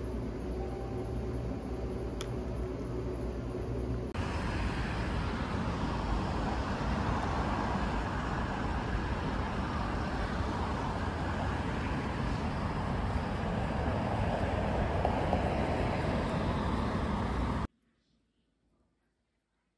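A steady room hum with faint held tones, then a sudden switch about four seconds in to a louder, even rush of city road traffic. The traffic noise cuts off abruptly near the end to near silence.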